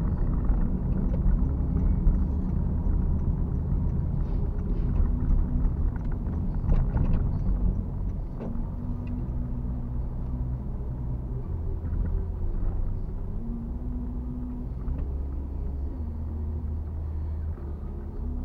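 Car driving, heard from inside the cabin: a steady low rumble of engine and road noise. It eases off about eight seconds in, and the engine hum then rises and falls as the car slows in traffic. There are a few light clicks and knocks in the first half.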